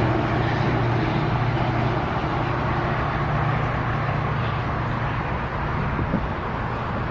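EMD F40PH-2 diesel locomotive running under power with a steady low drone and hum, getting slightly quieter as it moves off.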